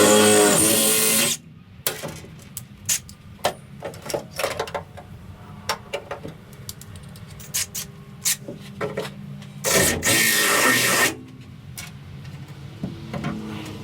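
Garage work sounds: two bursts of about a second each from a power tool, one at the start and one about ten seconds in. Between them come scattered clicks and knocks of tools and parts being handled, over a steady low hum.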